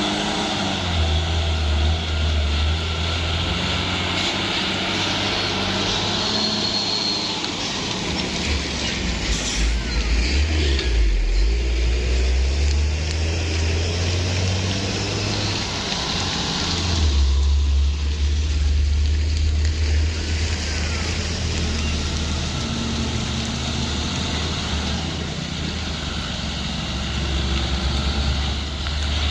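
Heavy truck's diesel engine running, its low drone changing pitch several times as it works, over a steady hiss.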